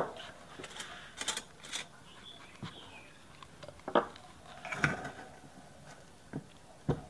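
Sharp clinks and knocks of an earthenware pot's lid and a metal spoon, about half a dozen spread over several seconds, the loudest at the very start, as coarse salt is scooped out of the pot with the spoon.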